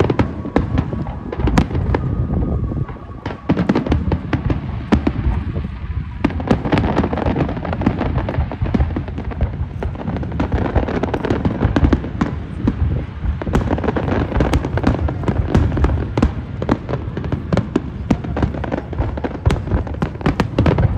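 Aerial fireworks shells bursting in a dense, rapid string of bangs and crackles, with a short lull about three seconds in.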